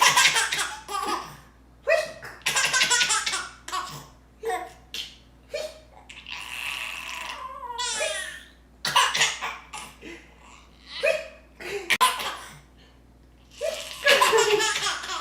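A baby laughing in repeated bursts of giggles, with a high squeal about halfway through.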